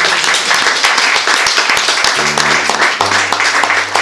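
Audience clapping, with a few held electric-guitar notes sounding underneath, about two seconds in and again from about three seconds.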